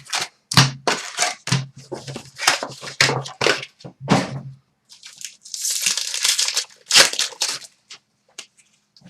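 Foil card-pack wrappers crinkling and tearing as trading card packs are ripped open and handled, in a quick run of sharp crackles, then a longer crinkle, then a few light clicks near the end.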